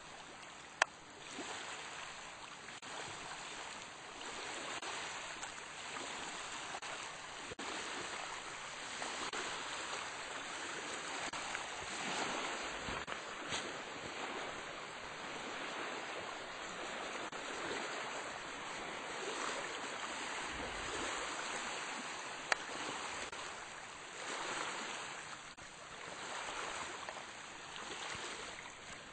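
Small waves washing over a gravel beach, the rush of water rising and falling every few seconds, with a couple of sharp clicks.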